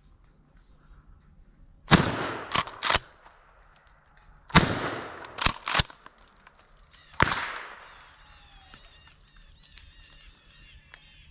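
Three loud shotgun shots about two and a half seconds apart, each ringing out through the woods and followed within a second by two sharper cracks.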